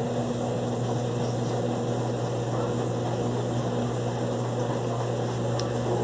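Electrolux LTE12 top-load washing machine spinning with a bunched, unbalanced load of dry clothes, as a test of its suspension. It gives a steady hum with noise over it, and one brief click near the end.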